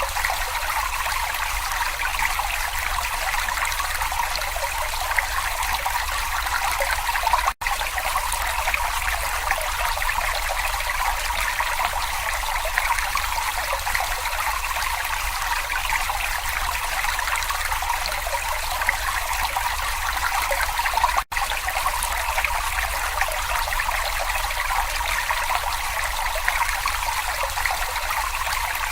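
Babbling brook: water trickling and burbling in a steady stream. The sound cuts out for an instant twice, about a quarter of the way in and again about three-quarters through.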